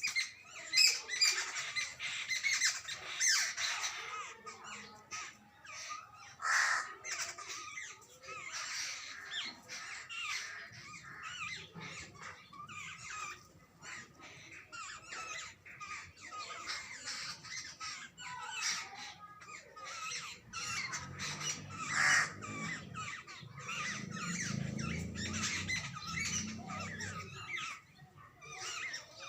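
Jungle babblers calling: a dense run of harsh chattering calls, one after another. A low hum runs underneath in the latter part.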